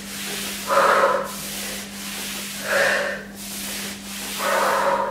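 Cloth towels sliding under bare feet across a wooden floor, three rubbing swishes about two seconds apart as the feet are dragged in and out.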